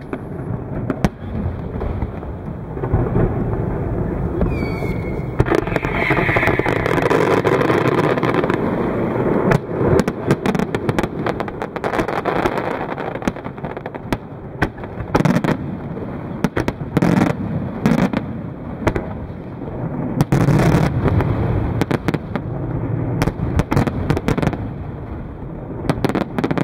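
Aerial fireworks display: shells bursting in a long run of booms and bangs, with a thick stretch of crackling about a quarter of the way in and several sharp, loud bangs in the second half.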